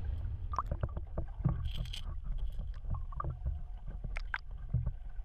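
Muffled lake water heard from under the surface: a steady low rumble with scattered short clicks and blips.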